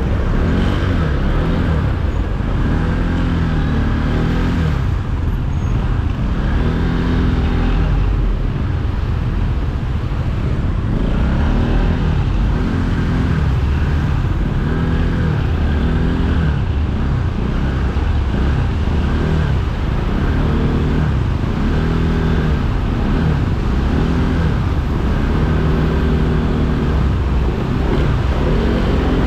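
A vehicle engine revving up and easing off over and over, its pitch rising and falling every couple of seconds, over a steady low rumble and road noise.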